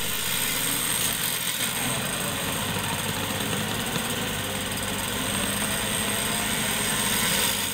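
Off-road 4x4's engine running steadily while the vehicle is winched up a muddy trail.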